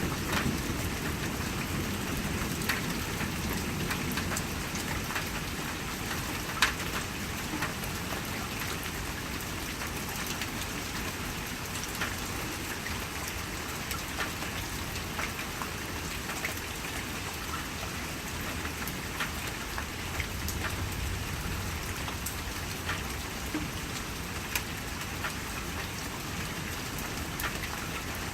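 Steady rain on a porch, with single drops tapping close by; one sharp drip about a third of the way in is the loudest. A low thunder rumble is dying away in the first couple of seconds.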